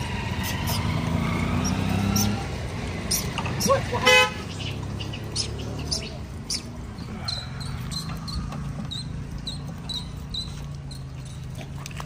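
Street traffic: a vehicle engine runs steadily and a horn gives one short toot about four seconds in. A run of short, high chirps follows in the second half.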